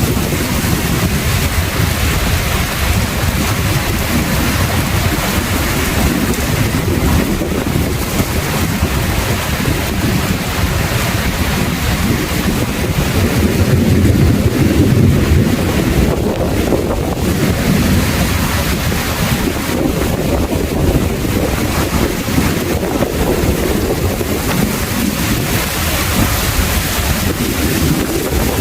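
Heavy rain pouring steadily, with a deep rumble of wind buffeting the microphone; it swells louder for a couple of seconds about halfway through.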